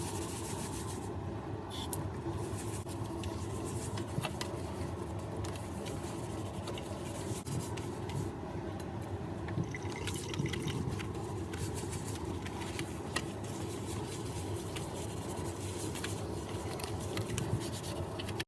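Water running and splashing into a kitchen sink, steady throughout, with small clicks and knocks of handling as the stained sink is cleaned with bicarbonate of soda.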